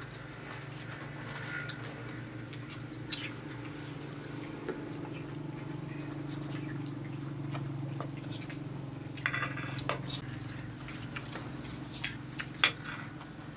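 Eating at a shared meal: scattered small clicks and taps of hands and spoons on plates and glasses, with a short scraping rustle about nine seconds in and a sharper click near the end, over a steady low hum.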